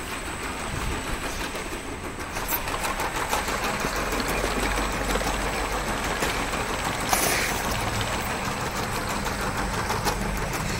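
Front-and-back two-side sticker labeling machine running: its slat chain conveyor clattering steadily over a low motor hum and a thin high whine, with one brief sharp click about seven seconds in.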